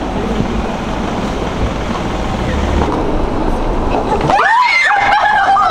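Street traffic noise, then about four seconds in a woman's loud, high-pitched scream as she is startled, held and wavering.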